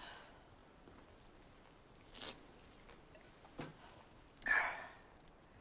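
A man drinking from a glass bottle: a few faint swallowing and moving sounds, then a louder breath out about four and a half seconds in.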